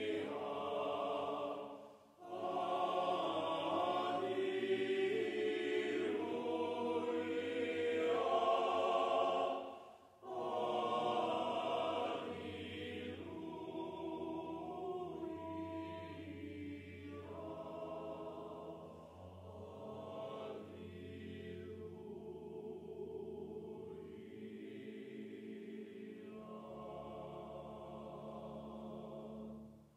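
Mixed chamber choir singing unaccompanied in sustained chords. The singers break off briefly about two and ten seconds in, and after the second break the singing is softer.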